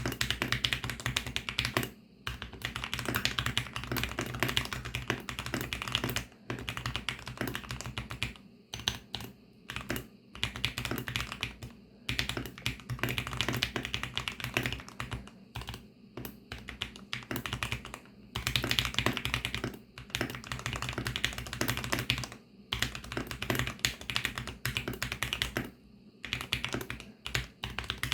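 Fast typing on a VARO V68 65% mechanical keyboard with lubed VARO Panda linear switches: rapid key clacks in runs of a few seconds, broken by short pauses.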